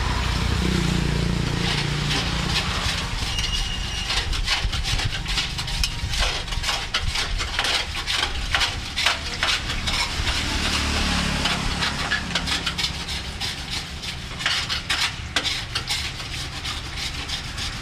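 Deep-frying oil crackling and sizzling around battered fruit balls, in many quick irregular pops, thickest in the middle stretch and again near the end. A steady low rumble runs beneath.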